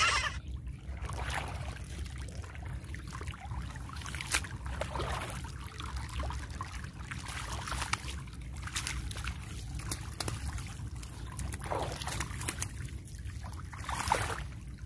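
Shallow water trickling and splashing through a muddy channel, an irregular patter of small drips and splashes.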